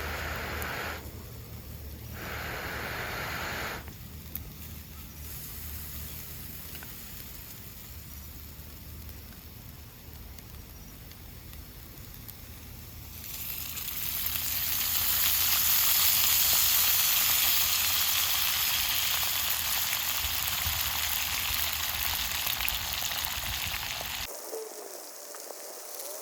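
Food sizzling in hot oil in a pan, a fine hiss that swells much louder about halfway through and stays loud.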